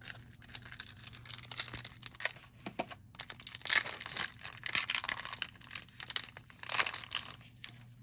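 Foil wrapper of a baseball card pack crinkling and tearing open, with the cards rustling, in irregular bursts that are loudest in the second half.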